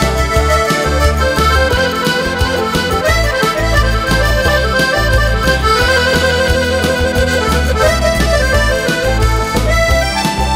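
Piano accordion playing an instrumental passage of a song over a steady, pulsing low beat.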